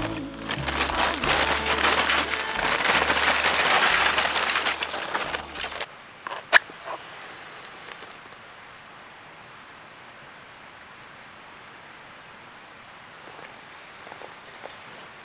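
Background music with a noisy texture and low bass notes, cut off abruptly about six seconds in. A single sharp click follows, then faint steady outdoor ambience.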